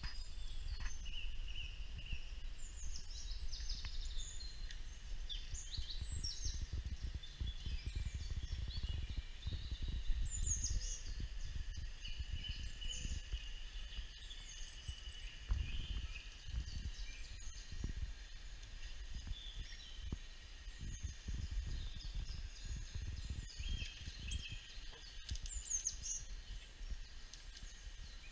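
Small garden birds chirping and trilling in short, scattered calls, played through a laptop's speakers from a bird-feeder video, over a steady low rumble.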